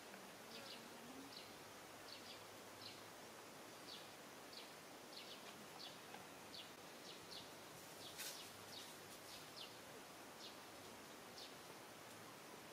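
Near silence: faint outdoor ambience with short, high chirps repeating about twice a second, one a little louder about eight seconds in.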